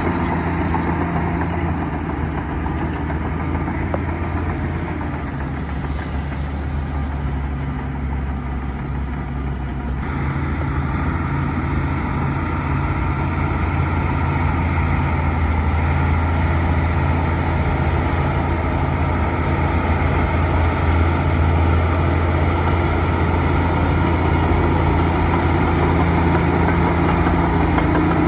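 Bulldozer's diesel engine running steadily. About ten seconds in its sound steps up and stays louder and fuller, as it goes back under load.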